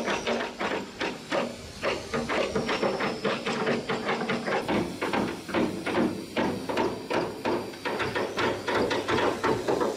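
Hammering on the steel of an old boat during maintenance work: quick, uneven metal strikes, about three or four a second.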